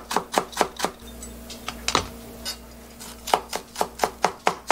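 Kitchen knife chopping finely on a cutting board, mincing carrot and then onion: a quick run of knife strikes, about four to five a second, then a pause of about two seconds with a few scattered taps, then quick even chopping again.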